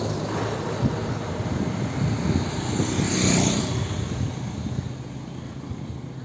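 Road traffic: a passing vehicle's engine hum dies away, leaving general traffic noise that grows quieter toward the end.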